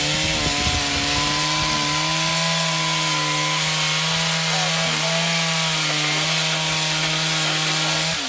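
Two-stroke chainsaw running at full throttle, cutting through OSB roof decking and shingles, its engine note dipping slightly under load. Near the end the throttle is released and the revs fall away.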